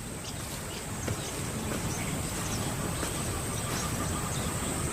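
Outdoor bush ambience: a steady high-pitched insect drone over a low, even background noise, with a few faint scattered ticks.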